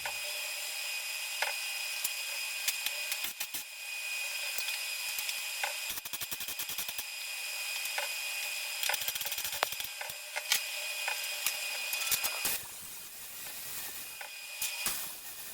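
Angle grinder with a cutoff wheel running and cutting steel hoop: a steady high whine with a scratchy, crackling edge, the motor cutting off about 12 seconds in and leaving a softer hiss.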